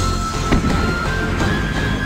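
Background music with a steady beat and a sharp hit about half a second in.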